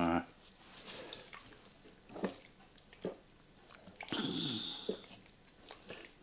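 Okroshka being stirred with a spoon: chopped ingredients squelching in sour cream and water, with scattered clicks as the spoon knocks the side of the dish. A brief wordless voice sound from the cook about four seconds in.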